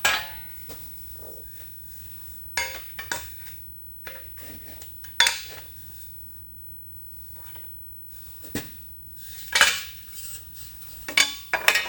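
Scattered metallic clinks and knocks of tools being handled against a metal shaper's ram and ways while its gib play is checked. There are about half a dozen separate sharp knocks, with quiet handling noise in between.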